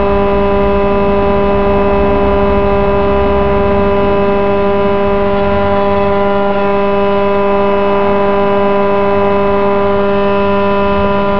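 HSD ES 721 M electro-spindle running at constant speed on a test bench after repair: a steady motor whine on one unchanging pitch with many overtones.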